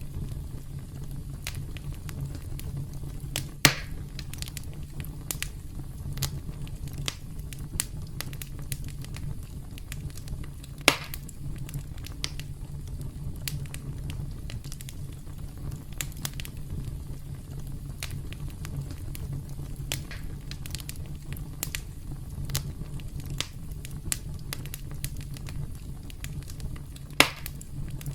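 Campfire burning with a steady low rumble and scattered crackles from the wood. Three louder pops stand out, about 4 seconds in, about 11 seconds in, and near the end.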